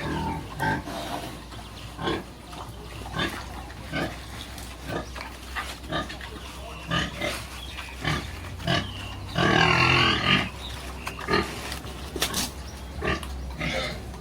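Pigs grunting, short grunts coming irregularly, with one longer, louder call lasting about a second some nine seconds in.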